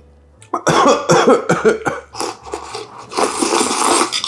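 A person coughing several times: a quick run of coughs starting about half a second in, a short one after that, and a longer harsh cough near the end.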